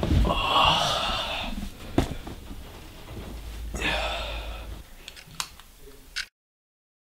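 A person gasping hard on waking with a start, with a second heavy breath about four seconds in, over a low hum. Near the end the hum drops away and a clock ticks into silence, about once a second.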